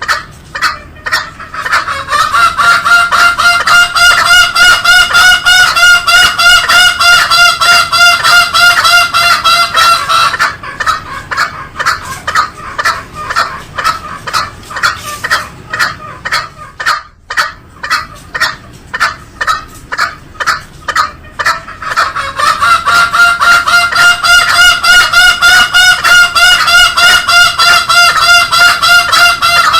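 Green junglefowl calling: two long, wavering, high calls about eight seconds each, one starting about two seconds in and the other past twenty seconds. A fast, even pulsing runs through the whole stretch.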